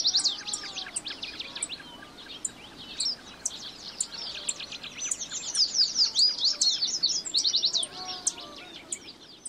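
Many wild birds chirping and calling together in a dense chorus of quick, high chirps, from a natural soundscape field recording. A few lower, drawn-out calls come in near the start and again near the end.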